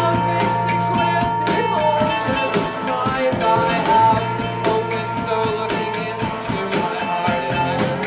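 Rock band playing a song live, with singing over guitar and a steady drum beat.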